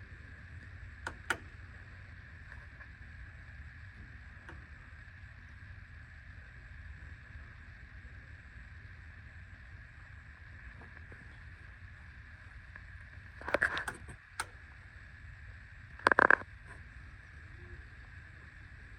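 Outdoor air-conditioner condenser unit running with a steady low hum and a steady higher tone. A few brief knocks break in, the two loudest about two-thirds of the way through.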